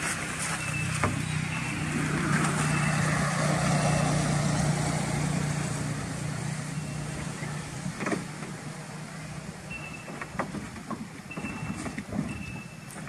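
A motor vehicle passing by, its steady engine hum swelling to a peak about four seconds in and then fading away. Short high chirps come now and then, and there are a few sharp knocks.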